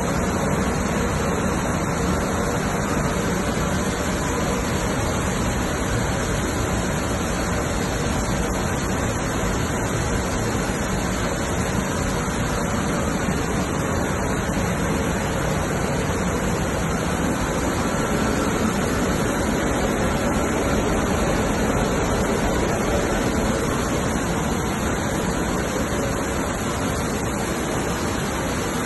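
Grain destoner running, with grain pouring steadily from its outlets: a loud, even machine noise that holds steady throughout.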